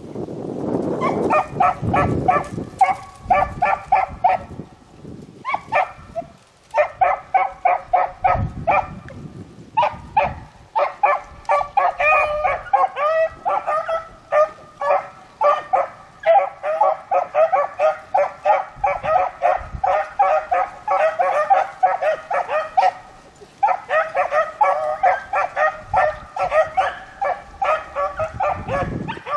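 A pack of beagles baying in rapid, overlapping calls as they work a rabbit's scent line, with a couple of brief lulls.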